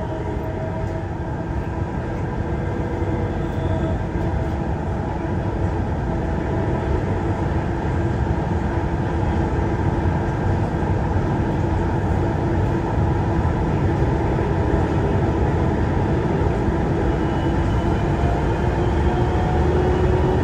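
Interior of a Siemens VAL 208 rubber-tyred automatic metro car running between stations: a steady rumble from the tyres and running gear, with a faint motor whine. The whine edges up in pitch, and the sound grows louder over the first half as the train gathers speed, then holds steady.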